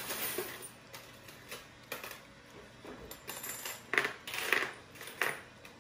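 A capuchin monkey biting and chewing juicy fruit: irregular small clicks and wet smacks, the loudest about four seconds in.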